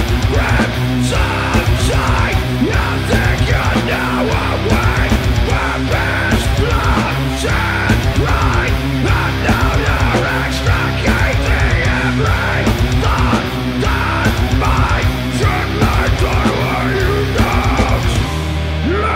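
Doom metal band playing live: heavily distorted electric guitars, bass and drums with steady cymbal hits. Near the end the drums and the deepest bass drop out, leaving the guitars.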